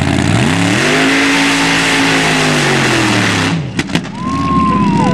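Open-class mud-racing buggy's engine revving hard: its pitch climbs steeply, holds high for about two seconds, then falls away. The sound breaks off with a couple of sharp clicks, then the engine runs again with a high steady whine over it.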